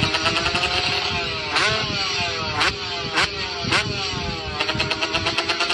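Two-stroke motorcycle engine revving: a steady run, then about four quick throttle blips between about one and a half and four seconds in, each pitch rising sharply and falling back, before it settles to steady running again.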